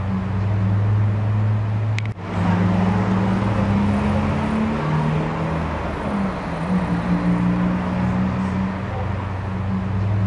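Street traffic: motor vehicle engines running with a steady low hum, over a rushing noise. The sound breaks off with a click and a short dip about two seconds in, then carries on.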